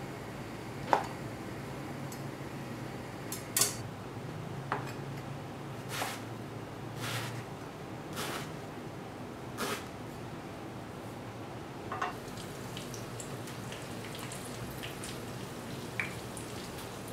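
Chef's knife cutting through shiitake mushrooms and eggplant and striking the cutting board, about eight separate chops spread over the first twelve seconds. After that, eggplant chunks deep-frying in oil in a small pan: a faint, even sizzle with scattered little pops.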